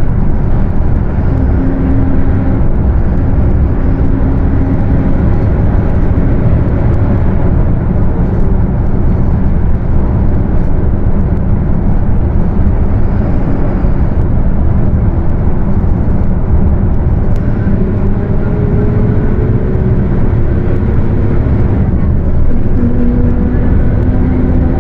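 Mercedes-Benz OF 1721 BlueTec 5 bus on the move: a loud, steady drone of diesel engine and road noise. Over it, a humming tone from the differential comes and goes several times and climbs in pitch for a few seconds near the end, the growl of a noisy differential.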